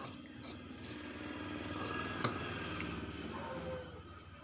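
Tailor's scissors cutting through khaki uniform cloth, with the cloth rustling on the table and a sharp click about two seconds in. A cricket chirps in rapid regular pulses behind it.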